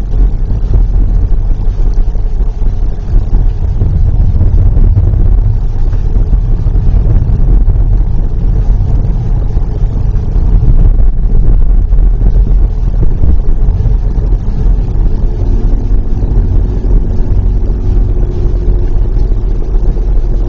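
A car driving along a road, heard from inside the cabin: a steady low rumble of engine and tyre noise, with a faint steady hum joining about three-quarters of the way through.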